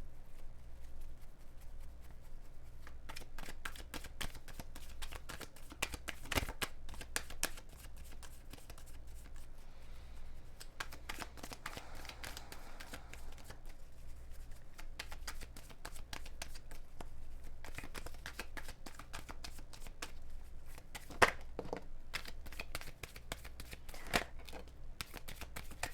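Tarot deck being shuffled by hand: a continuous run of quick papery card clicks and flutters, with a few sharper snaps about three-quarters of the way through.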